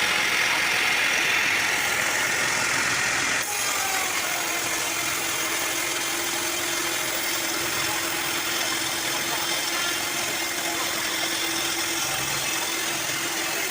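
A sawmill's engine running steadily. There is an abrupt change in the sound about three and a half seconds in, after which a steady hum holds.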